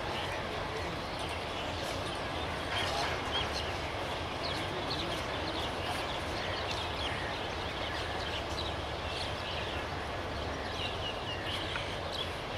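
Birds calling in many short, quick chirps over a steady low rumble from a distant diesel-hauled passenger train.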